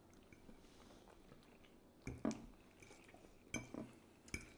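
Cutlery clinking and scraping on a plate a few times during a meal: three short, light clinks, about two seconds in, around three and a half seconds in, and just before the end.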